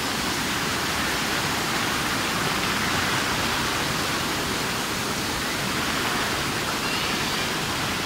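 Steady rushing of a small waterfall, water cascading over rock ledges in a forest stream.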